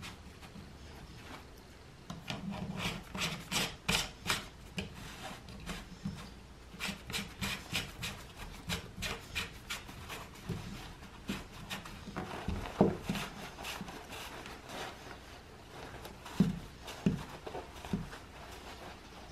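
Plastic fan unit being pushed and twisted into the mounting ring of a fan-cooled jacket: fabric rustling and plastic scraping in irregular short scratchy strokes, starting about two seconds in, with a few soft knocks in the second half.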